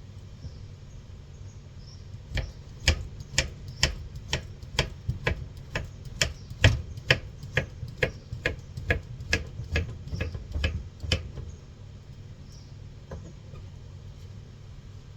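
Knife chopping fruit on a board: a steady run of sharp strokes, about two a second, starting a couple of seconds in and stopping near the end.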